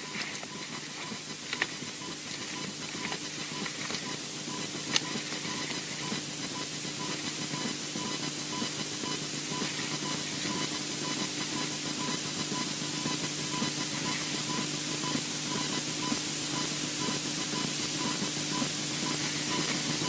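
Steady hiss on the osprey nest camera's outdoor microphone, slowly growing louder, with a low steady hum, a faint regular pip and a couple of soft clicks.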